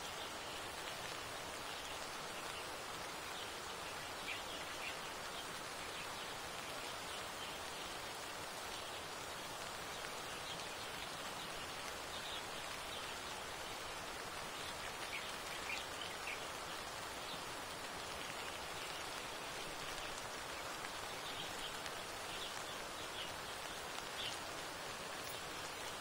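Steady hiss of rain falling, with a few faint, brief high bird chirps scattered through it.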